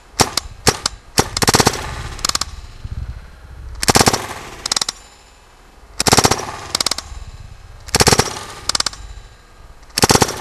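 RAP4 T68 magazine-fed paintball rifle, running on a compressed-air tank, firing strings of quick shots with short pauses between them; a really quiet gun.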